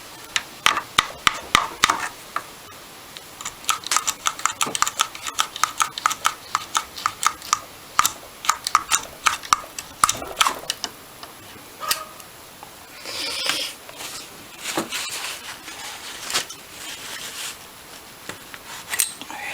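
Metal parts of an old Amal carburettor clicking and clinking as they are handled and tapped apart, many sharp small knocks, some with a brief ring. A short rushing noise comes about thirteen seconds in.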